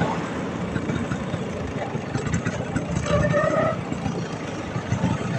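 Vespa PX scooter's two-stroke single-cylinder engine running with a dense, uneven rumble; its owner says the engine has suddenly started sounding strange. A short pitched sound rises above it about three seconds in.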